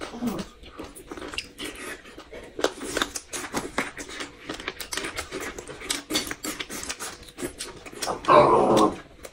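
Close-up eating sounds: chewing and biting fresh bamboo shoot and slurping egg soup, with many small sharp clicks. A louder sound lasting about a second comes near the end.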